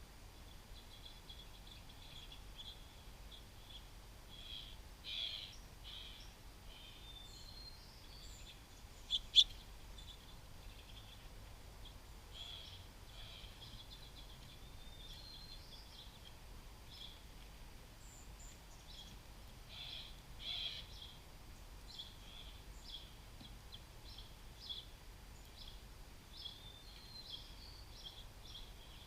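Small songbirds chirping and chipping in short, scattered notes, with busier flurries about five and twenty seconds in. A brief, much louder pair of sharp notes comes just after nine seconds.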